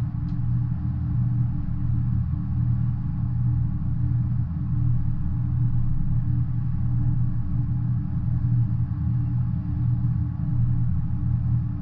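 Double-stack intermodal freight train rolling past, its well cars of stacked containers making a steady low rumble on the rails.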